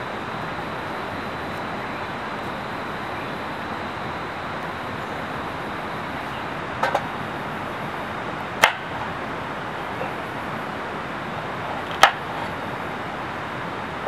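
A kitchen knife chops through a peeled potato onto a wooden cutting board in a few sharp knocks: a quick double knock about halfway through, then single strikes, the loudest near the end. Under it runs the steady rushing of a stream.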